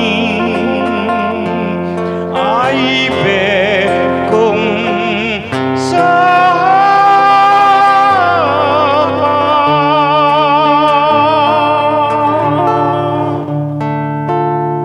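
The song's ending: a singer holds long notes with a wide vibrato over guitar and sustained chord accompaniment, and the music closes on a final chord that fades out near the end.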